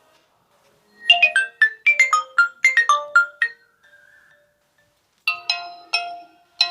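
Nokia Lumia 925 built-in ringtones or message tones playing. About a second in, one short tone plays a quick series of notes in falling runs. After a pause of under two seconds, another tone starts with evenly spaced notes, about three a second.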